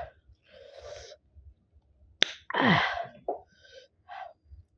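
Close-miked eating sounds from a person eating with her hands: soft wet mouth noises, then a sharp click about two seconds in, followed by a loud breathy vocal burst that falls in pitch over about half a second.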